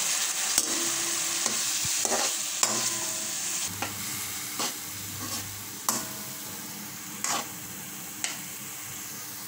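Freshly chopped onions sizzling in hot oil in a metal kadai, stirred with a perforated steel spoon that scrapes and taps against the pan every second or so. The sizzle eases off slowly.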